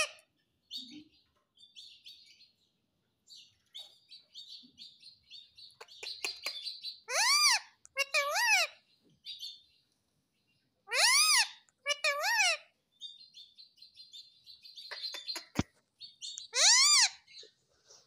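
Indian ringneck parrot (rose-ringed parakeet) giving loud, harsh calls in about five short bursts, some doubled. Soft, high chattering chirps come between them.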